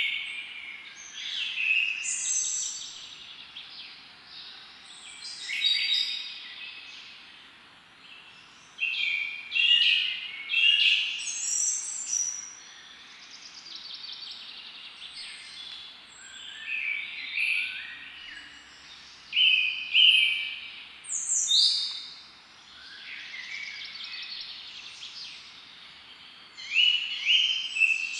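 Wild birds chirping and singing, short high calls coming in clusters every few seconds with brief lulls between, over a faint steady background hiss.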